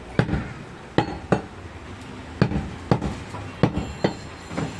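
Heavy butcher's chopper chopping goat meat on a round wooden log block: about eight sharp chops at uneven intervals.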